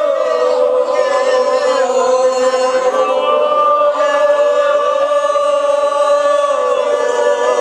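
A crowd of voices chanting a parap, a sung poem of praise, together in long held notes.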